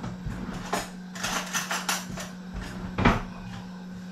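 A run of light clicks and knocks, then one louder knock about three seconds in, as things are handled on a kitchen worktop while jars are filled. A steady low hum runs underneath.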